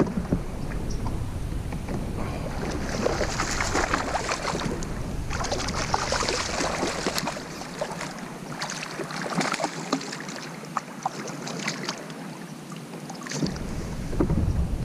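Water splashing as a hooked smallmouth bass thrashes at the surface while being reeled in to the kayak, with wind buffeting the microphone.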